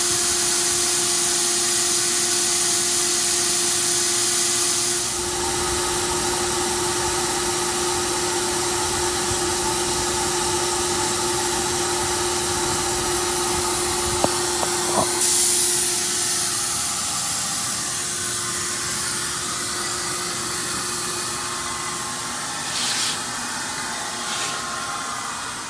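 Vacuum cleaner motor running steadily with a whining hiss, used to blow air through a car's exhaust to find a leak. Its pitch and level shift about five seconds in, a few clicks come around the middle, and the whine then fades under the hiss.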